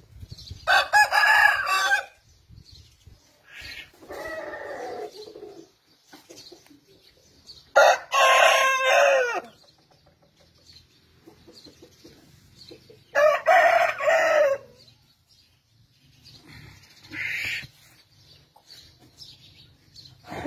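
Aseel rooster crowing three times, each crow about a second and a half long and about six seconds apart, with two quieter calls between them.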